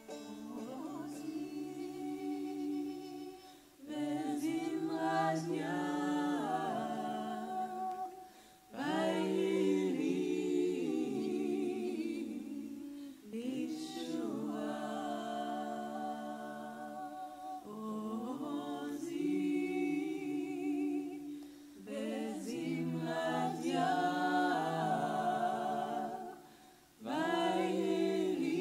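A small group of mixed voices singing a wordless Jewish nigun unaccompanied, in harmony, in phrases of about four to five seconds with short breath pauses between them.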